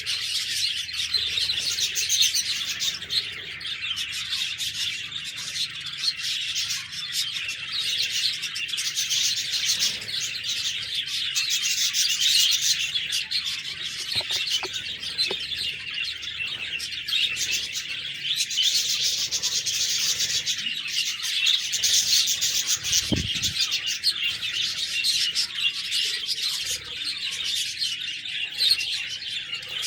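A group of budgerigars (budgies) chirping and warbling continuously, many high chirps overlapping without a break.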